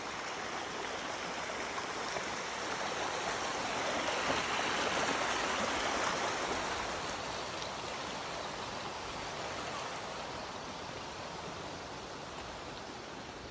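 Stream water at the Bosna river's spring rushing steadily; it grows louder about four to six seconds in, then eases off.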